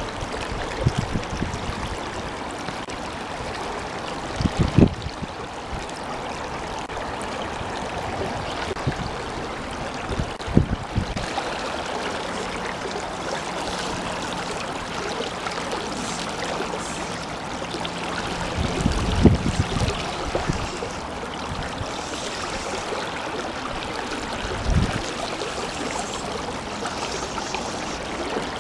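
Shallow stream running over a gravel bed: a steady rushing of water. Several short low thumps break in, the loudest about five seconds in and again near nineteen seconds.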